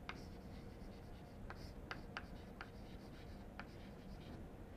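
Chalk writing on a chalkboard, heard faintly: light scraping with a handful of sharp, irregular taps as the chalk strikes the board.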